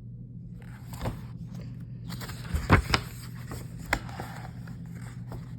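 Light paper rustling and a few soft knocks as a picture book is handled, with the loudest knocks bunched near the middle and one more about four seconds in, over a steady low hum.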